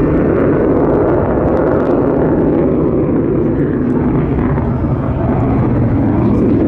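Saab 37 Viggen jet fighter's Volvo RM8 turbofan engine, a loud, steady jet roar from the aircraft in its display flight, easing slightly about five seconds in and then building again.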